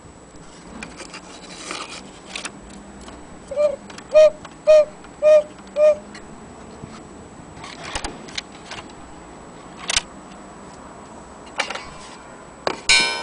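Black Forest cuckoo clock with scattered mechanical clicks and ticks, and a run of five short, evenly spaced pitched notes about four seconds in.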